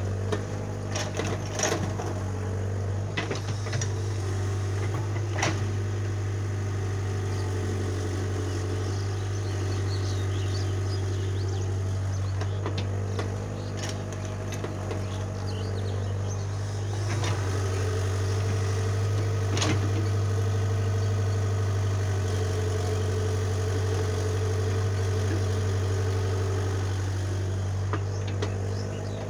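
Diesel engine of a CAT mini excavator running steadily at work, a low drone that strengthens for a stretch past the middle, with a tractor's engine idling alongside. Occasional sharp knocks as the bucket digs and dumps clods of soil into the steel tractor trailer.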